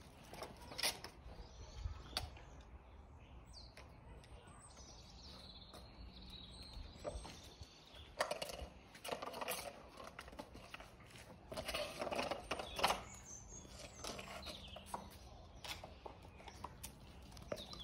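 Weimaraner puppies scampering and playing on patio paving slabs: scattered clicks and scuffles of paws and claws, with louder clusters about eight and twelve seconds in. Birds chirp in the background.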